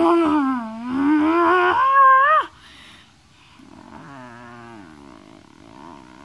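A child's voice imitating an animal for a plush bear: a loud, drawn-out moaning growl whose pitch dips and then rises before cutting off about two and a half seconds in, followed by quieter wavering moans.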